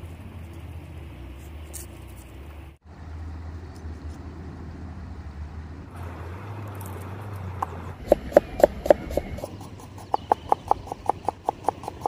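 A knife chopping a red onion on a plastic cutting board: sharp knocks begin about eight seconds in, then settle into a fast, even run of about five chops a second. A steady low rumble lies under it.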